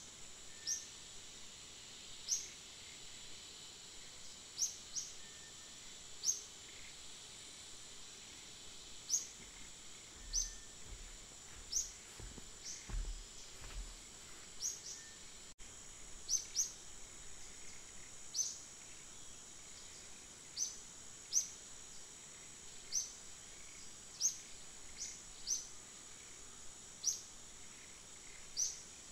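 Forest ambience: a steady high-pitched insect drone with short, high, falling chirps repeating every second or two. There are a few low bumps in the middle.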